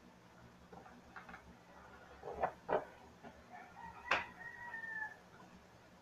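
Small plastic pieces clicking and clacking as they are set into the compartments of a plastic makeup box: two sharp clicks a little past halfway, then a louder clack. A faint, steady call of about a second and a half overlaps the clack.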